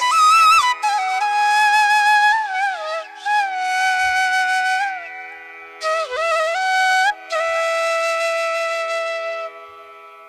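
Background music: a slow melody of long, bending notes in phrases with short breaks, over a steady drone.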